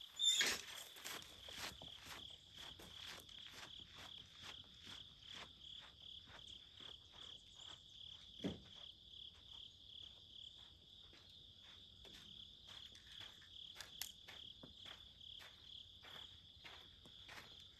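Steady high-pitched chorus of insects, with faint regular ticks throughout. A louder knock comes right at the start and a single thump about halfway through.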